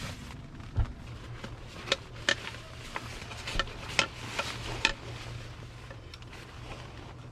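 A series of sharp clicks and knocks, about a dozen in the first five seconds, over a steady low hum.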